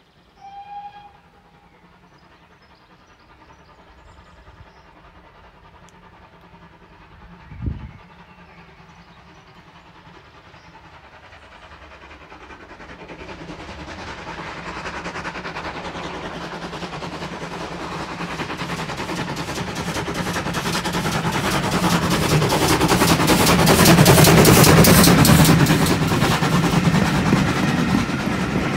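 GWR 57xx pannier tank steam locomotive 7714 working hard up a gradient as it approaches and passes close by. Its exhaust beats grow from faint to loud and quick, loudest about three-quarters of the way through, then the coaches' wheels clatter over rail joints near the end. A short whistle sounds just after the start, and there is a brief thump about eight seconds in.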